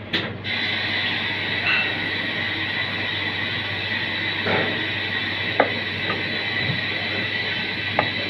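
Water running steadily from a tap into a steel sink, switched on about half a second in, with a few light knocks of the knife on the plastic cutting board.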